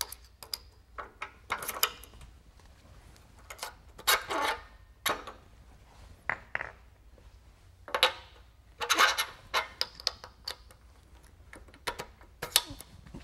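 Metal clinks, clicks and short scrapes as a beading die is fitted into a Baileigh PH-19 power hammer's lower tool holder and its quick-release pin is set, with the hammer switched off. The knocks come in scattered clusters with quiet gaps between them.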